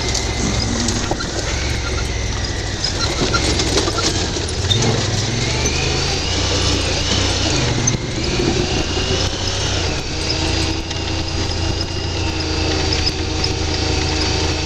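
UTV engine running steadily at crawling speed over rough, rocky ground, with scattered small knocks and rattles.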